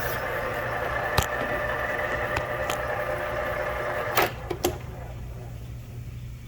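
Cylinder head machining spindle running with a steady whine, then stopping about four seconds in, with a few sharp clicks and knocks, as a machining pass on the head is finished.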